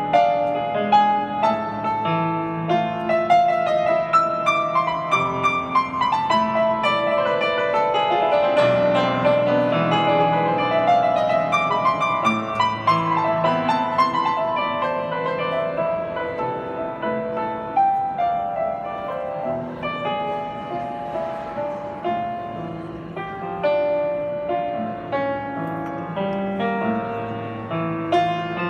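Grand piano played solo: a continuous flowing passage of overlapping, sustained notes.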